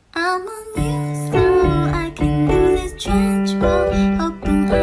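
Background music: held keyboard-like notes over a bass line, coming in about a second in.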